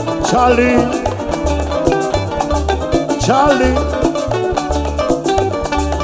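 A live Dominican son band playing an instrumental passage. An upright bass plays a steady, repeating pattern under guitar lines and hand percussion.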